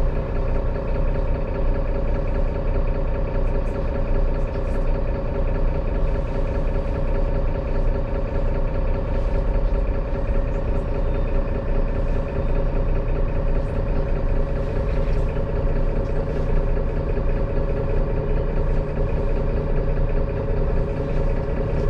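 Mercedes-Benz city bus's engine idling steadily while the bus stands, heard inside the passenger cabin as an even drone.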